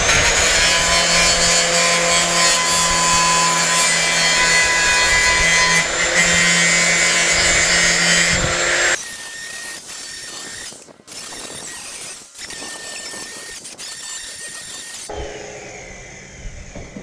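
Corded angle grinder scuffing the paint on a steel truck tailgate: a loud, steady motor whine with the grind of the disc on the metal for about nine seconds, then quieter with a few brief dropouts, dying away near the end.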